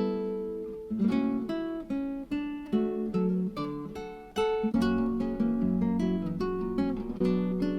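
Background music of acoustic guitar playing plucked and strummed notes.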